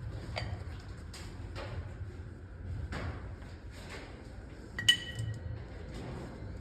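Scattered light knocks and taps, then a single sharp clink of metal or glass a little past halfway that rings briefly.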